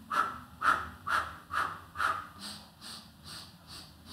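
A woman's rhythmic, forceful breathing for the Pilates hundred: short breaths about two a second, a set of five louder ones followed by softer ones.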